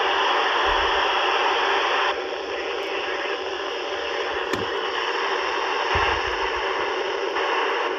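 Hiss of FM radio static from ham radio receivers tuned to the ISS repeater downlink, with no voice coming through. The hiss drops back about two seconds in and comes up again around six seconds in, and there are a couple of soft low thumps.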